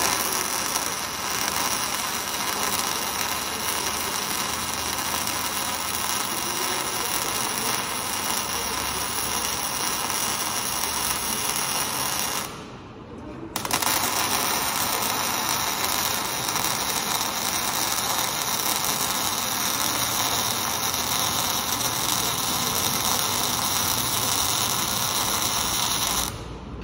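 MIG welding arc on a steel frame, a steady crackling hiss. It breaks off about halfway through for a second, starts again, and stops shortly before the end.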